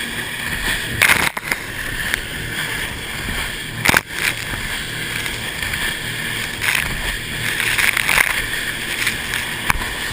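Washing machine running with a steady churning noise, with a few sharp knocks: one about a second in, one near four seconds, and one near the end.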